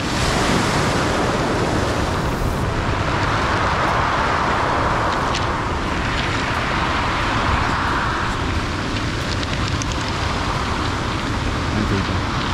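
Ocean surf breaking and washing up a pebble beach, with wind on the microphone. The wash swells in the middle and then fades.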